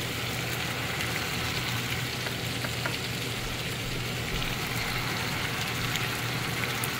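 Bone-in chicken pieces frying in oil and spices in a non-stick pan, a steady sizzle with a low hum beneath it.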